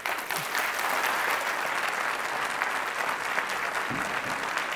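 Audience applauding at the close of a talk: dense, steady clapping that starts at once and holds at an even level.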